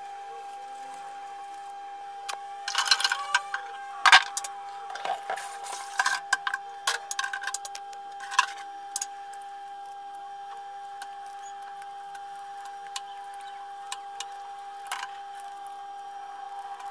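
A pressure cooker's pot and black handle parts clacking and knocking against each other and the stainless-steel sink as they are handled, a busy cluster of clicks and knocks from about two to nine seconds in, loudest around four seconds. After that there are only a few isolated clicks over a steady faint background tone.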